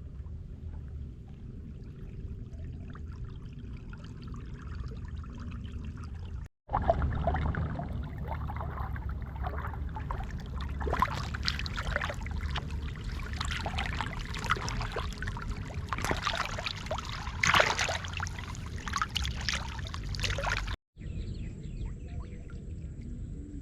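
Water splashing, pouring and trickling, in three cut-together stretches. The middle stretch is louder, with many sharp splashes and knocks.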